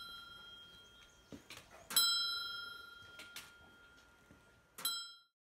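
Bell on a large Tibetan Buddhist prayer wheel, struck once each turn as the wheel spins: a bright ring that fades slowly, struck again about two seconds in and once more near the end, with faint knocks between. The sound cuts off suddenly just after the last strike.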